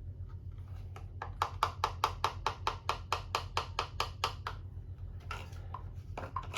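A fast, even run of sharp ticks or clacks, about six a second for some three seconds, from the bottle of transmission oil treatment being handled as it is added. A steady low hum lies underneath.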